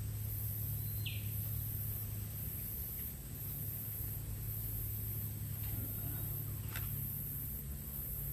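A steady low hum, with one short falling bird chirp about a second in and a faint click near the end.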